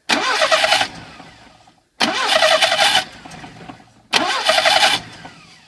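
Lada VAZ 2101–2107 four-cylinder engine being cranked three times in short starts of about a second each, fading away after each one without settling into an idle. These are start attempts just after a rebuilt timing chain tensioner has taken up a slack chain.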